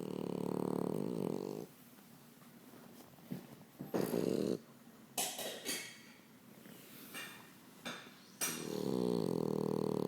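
French bulldog snoring in its sleep: two long snores about eight seconds apart, one at the start and one near the end, with short noisy breaths in between.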